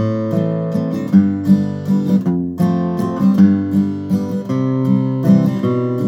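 Martin OM-21 Standard steel-string acoustic guitar being played: chords ring out under a run of picked notes, with a short break in the treble about two and a half seconds in.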